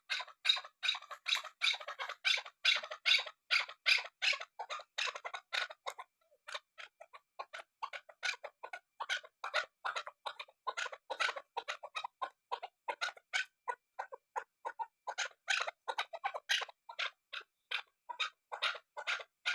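Chukar partridge calling: a long run of short, harsh chuck notes, about three a second, briefly softer around six seconds in.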